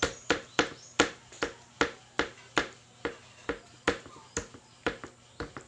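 Chicken breast being flattened by striking it with the bottom of a drinking glass through a plastic sheet on a ceramic plate: a steady run of sharp knocks, about two to three a second.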